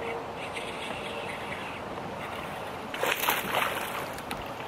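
Lake ambience around a small fishing boat, with water lapping and light wind. About three seconds in there is a brief splashy, rustling burst, the loudest sound here, and a short thump comes at the very end.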